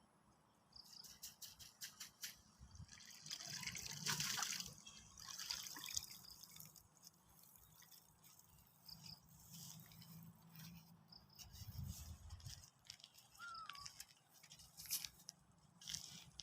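Water dripping and splashing in many small irregular drips, with a louder spell of splashing about four seconds in.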